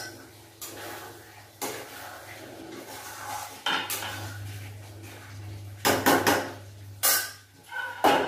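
Metal spatula scraping and clanking against a metal kadhai while stirring, with sharp clinks of kitchen utensils and a lid, several in quick succession about six seconds in. A low steady hum runs underneath.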